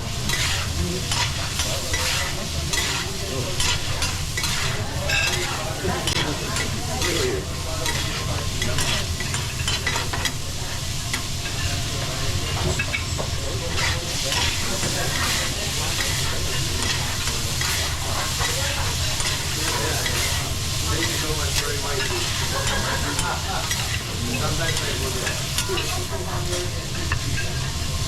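Food sizzling on a teppanyaki griddle while metal spatulas scrape and tap across the hot steel, with many quick clicks, busiest in the first half, over a steady low hum.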